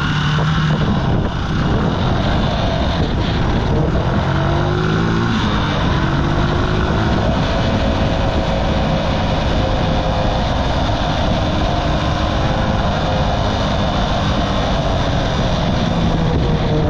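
Archive Motor AM60 125cc motorcycle engine running under way, its pitch rising a few times in the first several seconds, then holding steadier. Heavy wind rumble on the microphone from riding speed and gusts.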